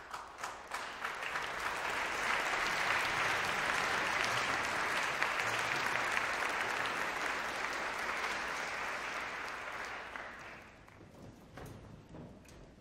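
Concert audience applauding, building over the first couple of seconds and dying away about ten seconds in, with a few scattered claps after.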